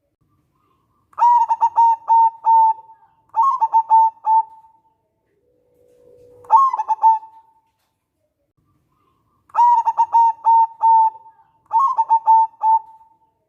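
A zebra dove (local perkutut) singing in five bouts of rapid cooing notes with short pauses between them. One bout opens with a low drawn-out note.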